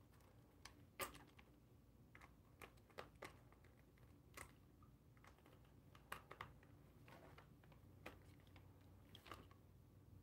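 Faint, scattered plastic clicks and taps, about a dozen, the loudest about a second in: a Turtle Beach gaming headset and its plug-in microphone being handled and fitted together.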